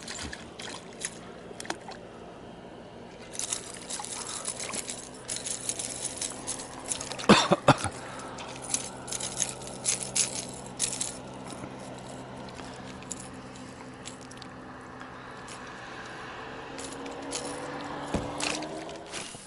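A perch on a spinning line being landed by hand at the side of an inflatable boat: water splashing and dripping as the fish is lifted and unhooked, with scattered small clicks and crackles, two sharp knocks about seven seconds in, and a low steady hum underneath.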